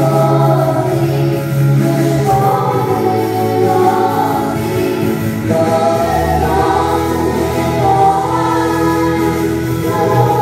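Three girls singing a Ukrainian worship song together into microphones, several voice parts at once, over an accompaniment of long held low notes.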